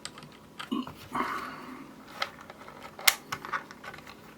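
Scattered single key presses on a Keychron K6 mechanical keyboard with red linear switches: a few sharp clicks, a cluster of them between about two and four seconds in, and a short soft rustle about a second in.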